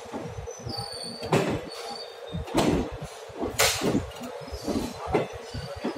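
ICF passenger coaches rolling past, their wheels knocking irregularly over rail joints with several sharp clunks.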